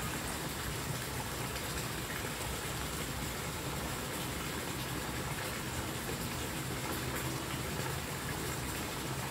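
Steady, even rush of water with no separate splashes or strokes.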